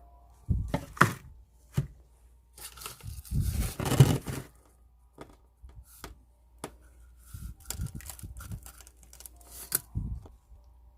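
Potting soil being filled into a succulent planter by hand: irregular rustling and scraping with a few light knocks, loudest about four seconds in.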